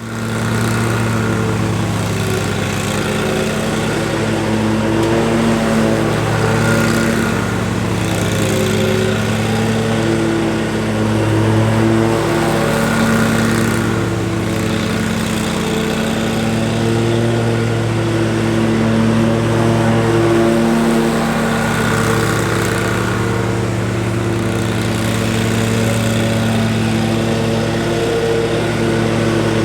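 Exmark Lazer Z zero-turn commercial mower's engine running steadily while mowing.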